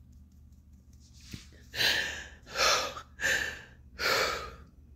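A woman crying, taking four heavy, gasping breaths of about half a second each, starting a couple of seconds in. It is the breathlessness of grief.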